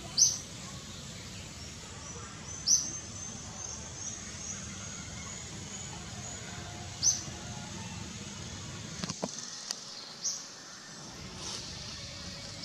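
Sharp, high-pitched animal chirps, four loud ones a few seconds apart with fainter chirping between them, over a steady low outdoor hum. A few light clicks come near the end.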